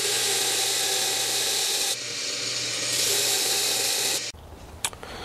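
Belt grinder sanding the bandsaw-cut end of a thin-wall aluminum tube back to the scribed line: a steady rasping hiss over the electric motor's hum. The grinding eases briefly about two seconds in and stops about four seconds in, leaving the motor running, with one click shortly after.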